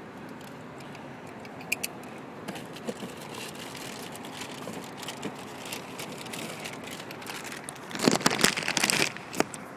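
Plastic packaging crinkling and rustling as an equalizer is unwrapped by hand, with a couple of sharp clicks about two seconds in and loud crinkling over the last two seconds.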